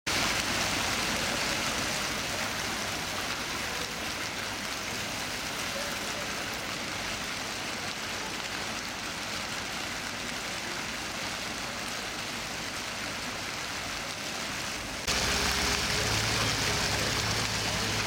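Water splashing and trickling down a stepped stone cascade, a steady rushing hiss. About 15 s in it jumps louder, and a steady low hum runs beneath the water from then on.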